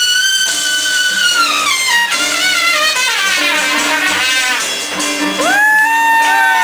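Live Latin jazz band with a trumpet solo: the trumpet holds a high note, lets it fall away, then plays quick rising and falling runs over a steady conga pattern. About five seconds in, a long note slides up and is held.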